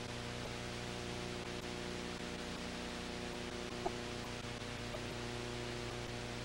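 Steady hiss with a low electrical hum from a silent film's video transfer, and a single sharp click about four seconds in.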